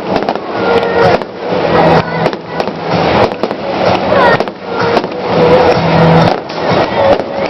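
Fireworks display: a rapid, irregular run of bangs and crackling from bursting aerial shells, one after another.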